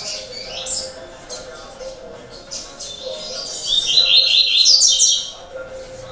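Double-collared seedeaters (coleiros) chirping, with a loud, fast run of repeated high notes from about three and a half to five seconds in. A faint steady hum runs underneath.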